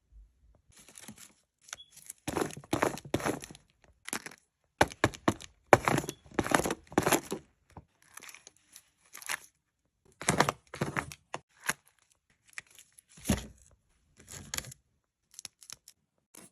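Paper or card crinkling and tearing in irregular bursts of about a second each, with short pauses between, as cardboard craft material is handled.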